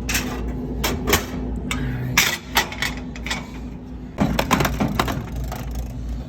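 Irregular sharp clicks and clinks of coins being handled, thickest about four seconds in, over a steady low hum.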